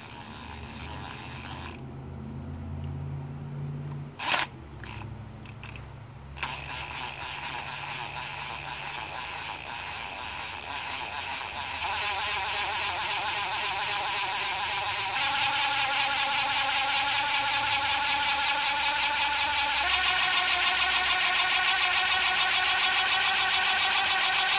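A small drill whines steadily at high speed as it bores a pilot hole into a broken VANOS adjustment-unit mounting bolt, for a screw extractor. A sharp click comes about four seconds in. The whine starts about two seconds later and grows louder in steps as the drilling goes on.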